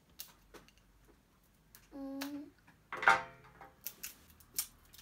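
Scissors snipping and clicking at the tape on a small plastic slime tub, a few light clicks. About three seconds in comes a louder clatter as the scissors are set down on the glass tabletop.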